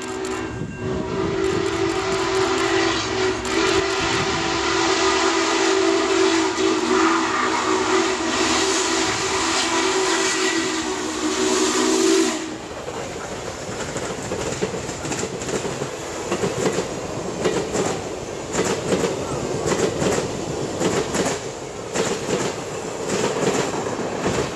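Norfolk & Western 611, a J-class 4-8-4 steam locomotive, sounding its multi-tone steam whistle in one long blast with a brief break near the start as it approaches. The whistle cuts off sharply about halfway through as the engine passes. Then comes the rush of the locomotive and its passenger cars rolling by, wheels clicking over the rail joints.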